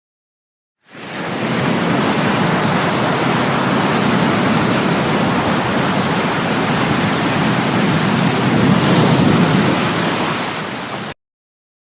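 A rushing-water sound effect, a steady surf-like rush. It starts about a second in, swells slightly near the end, and cuts off abruptly.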